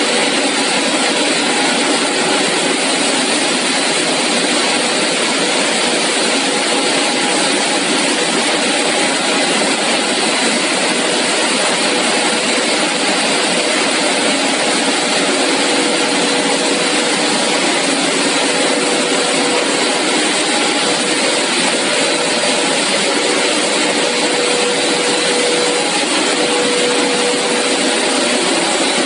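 CPP three-layer co-extrusion cast film line running: a steady, loud machine noise full of hiss, with a faint steady hum that grows a little stronger near the end.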